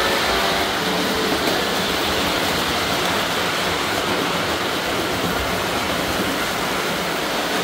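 Model train rolling along its track close by: a steady whirring rumble of wheels on rail and motor.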